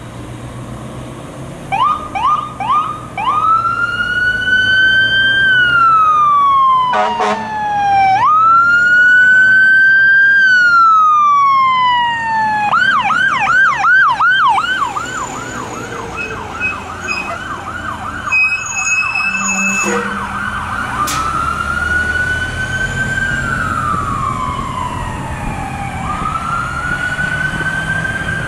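Fire ladder truck's electronic siren on a response: a few short chirps, then a slow rising and falling wail, then a fast yelp for several seconds, then back to the wail. A short horn blast breaks in about a quarter of the way through.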